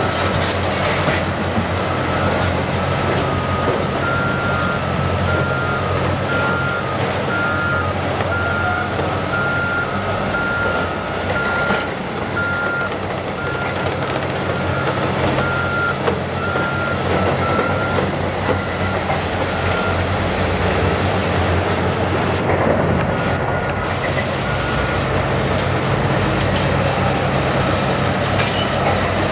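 Heavy diesel Caterpillar excavators running under load as they break up a concrete overpass, with steady crunching and cracking of concrete. A backup alarm beeps about once a second for most of the time and stops near the end.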